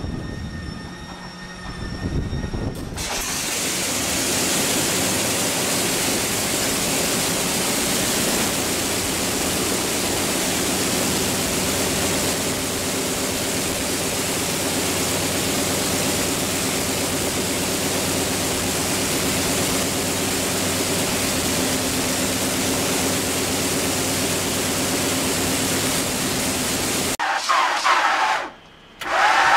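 Large radial aircraft engine on a test stand, turning a four-bladed propeller; about three seconds in it runs up to a loud, steady high-power run and holds there. Near the end the sound breaks off with short gaps, and a small radial engine on a biplane is heard starting.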